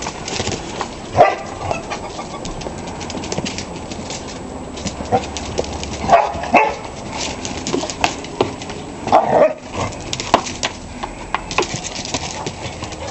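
Irish setters and an English setter play-fighting, with short barks and yelps now and then, the loudest about a second in, two close together around six seconds in, and another near nine seconds, over scuffling.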